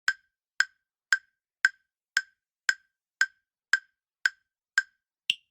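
Countdown timer tick sound effect: eleven short wood-block-like ticks, about two a second, the last one higher-pitched, marking the end of the answer time.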